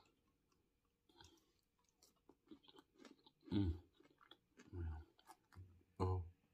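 A person chewing fried catfish with wet lip smacking and small clicks, the sound of eating at the mic. Several short closed-mouth hums come about halfway through and again near the end.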